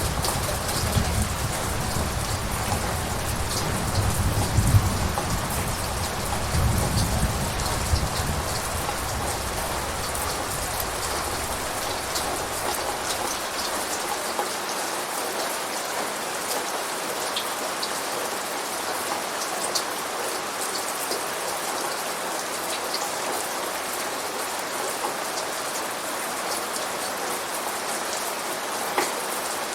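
Steady rain, with individual drops ticking through it. Under it a low rumble of thunder rolls for the first dozen seconds and fades away, leaving only the rain.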